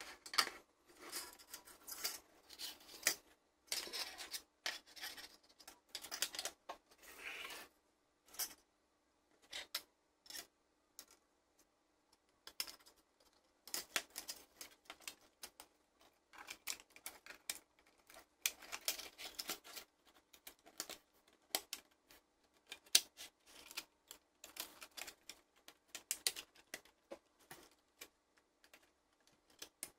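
Hard plastic toy casing parts being handled and fitted together on a wooden table: irregular clicks, taps and brief rubbing, with short pauses between.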